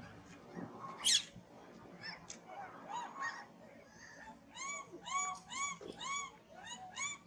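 Baby monkey crying: a short high shriek about a second in, then, in the second half, a quick run of short whimpering calls that rise and fall in pitch, about two or three a second.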